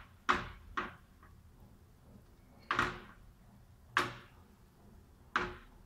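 A metal spoon knocking against the cooking pan five times, spaced out, as spices are stirred into the gravy.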